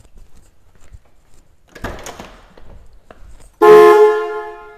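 Electric car horn on a 1972 Buick GS Stage 1 sounding one short blast about three and a half seconds in. The horn works again after its repair.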